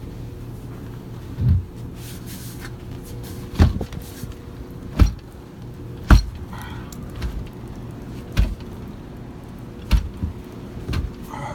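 A back door being shoved against packed snow, giving about seven separate thuds and knocks at irregular intervals as it is forced. A steady low hum runs underneath.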